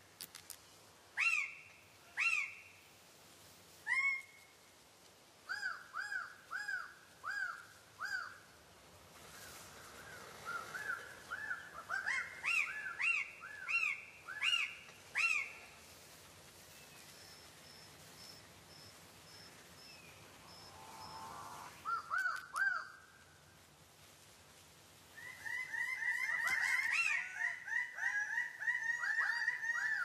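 Male birds-of-paradise calling at a display tree: loud short calls, each rising and falling in pitch, repeated in quick series. Near the end several birds call together in a dense, overlapping run.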